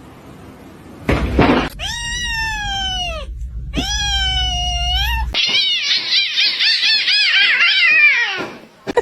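Cat meowing loudly: a short rush of noise, then two long drawn-out yowls, then a quick run of short wavering yowls that stops near the end.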